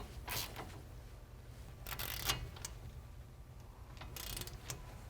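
A ratchet wrench clicking in a few short spells as the tie rod nut is tightened down.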